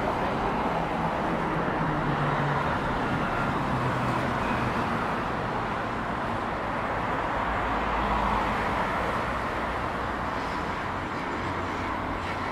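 Steady city street noise with road traffic, and a low engine hum in the first few seconds.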